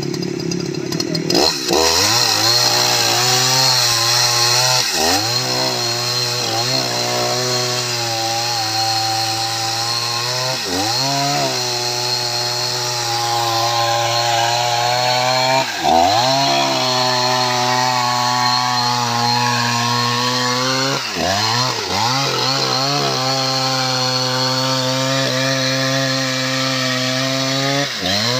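Large two-stroke chainsaw revving up about a second and a half in, then running at full throttle as it rips lengthwise through a red mahogany log. Its engine note dips briefly every few seconds under load and recovers.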